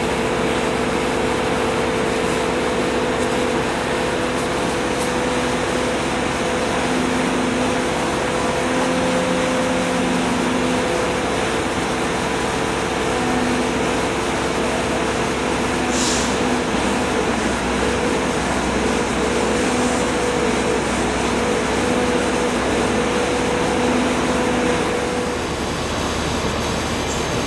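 Heavy lifting machinery's engine running steadily, with a wavering hum that fades in and out, and a short hiss about two-thirds of the way through.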